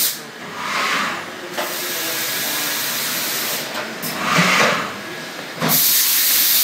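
Heller BHZ 07 CNC machining centre running with a loud steady hiss. The hiss stops twice for a second or so, and in each gap a machine whine rises and falls in pitch.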